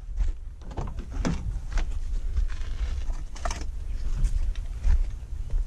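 Car door being opened and things handled inside the car: a few sharp clicks and knocks over a steady low rumble.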